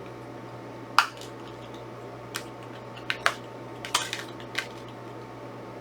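Plastic Blu-ray and CD cases being handled: a scattering of short, sharp plastic clicks and taps, the loudest about a second in, over a steady low hum.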